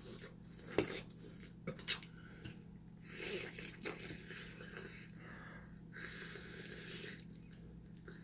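Cutlery clinking on dishes during a meal: a handful of light, scattered clicks and knocks, with some softer rubbing and scraping between them.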